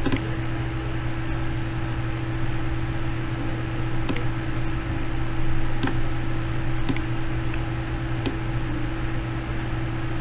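Steady hiss and low electrical hum from the recording microphone, with several faint computer mouse clicks spread through it.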